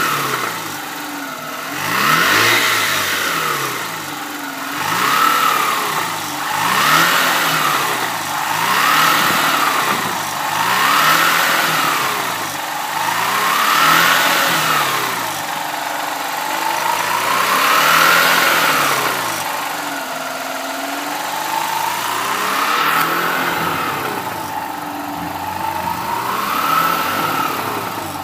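Mazda RX-8's twin-rotor Renesis rotary engine revved in neutral about ten times, each blip rising and falling back toward idle, with the later revs slower and more drawn out. The revving is a test for a knock that the owner hears when the throttle is released.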